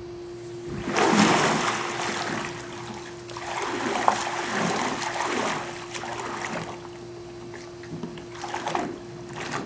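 Pool water splashing and sloshing as a person climbs into a small-cockpit kayak, in uneven surges: the loudest about a second in, more a few seconds later and again near the end. A steady low hum runs underneath.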